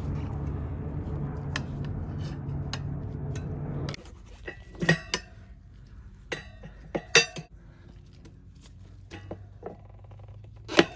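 A steady low rumble that cuts off abruptly about four seconds in, then steel tire levers clinking and knocking against a spoked motorcycle wheel rim as a tubeless tire is pried off: a series of sharp metallic clinks, each with a brief ring.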